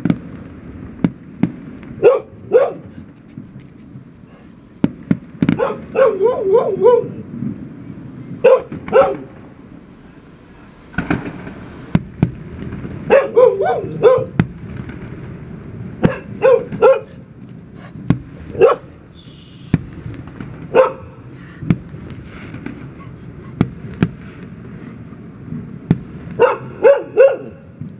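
A dog barking in short runs of two to four barks every couple of seconds, with single bangs and cracks of fireworks between the runs.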